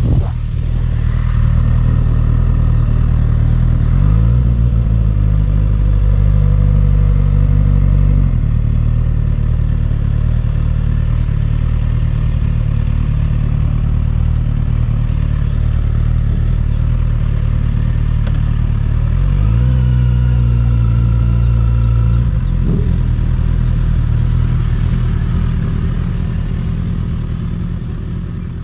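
Motorcycle engine running at low riding speed, close up. The revs rise and hold for a few seconds twice, about four seconds in and again after about twenty seconds, then drop back. The sound fades out at the end.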